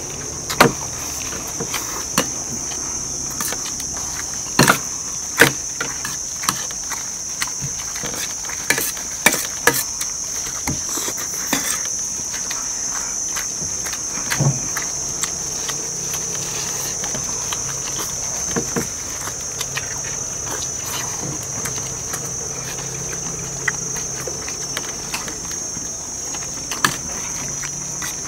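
Steady high-pitched drone of insects, with scattered sharp clicks and knocks of spoons against plates.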